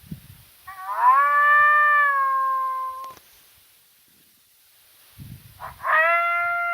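Coyote-hunting call sounding two long, howl-like notes. Each rises quickly, holds a steady pitch and drops off at the end, and the second is slightly higher and shorter. A sharp click follows the first note.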